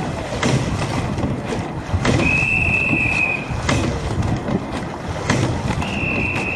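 Two long blasts of a whistle from the bank, the first about 2 s in, the second starting near the end, signalling that the crew is closing on the boat ahead. Under them, the oars knock at the catch about every 1.6 s over rushing water and wind noise as the eight rows at race pace.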